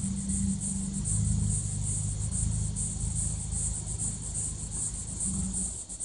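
Low exhaust drone of a 2015 Subaru WRX's turbocharged flat-four with a new aftermarket exhaust, fading as the car moves away and dying out near the end. Insects chirp in a steady pulsing rhythm over it.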